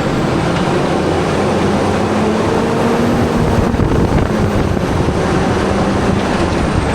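Loud, steady motor vehicle noise: a rumble with an engine hum running through it.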